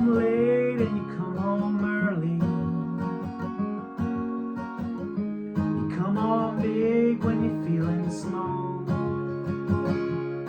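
Acoustic guitar strummed in a steady rhythm, with a sung vocal phrase at the start and another about six seconds in.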